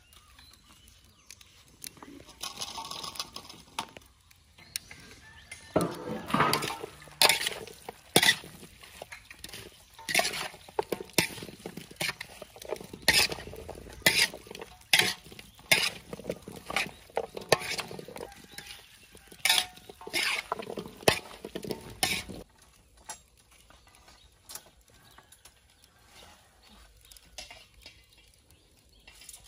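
A metal spoon scraping and clinking against a large metal basin as chopped vegetables and spiced meat are tossed together: a run of sharp strokes, about one to two a second, that stops about three-quarters of the way through.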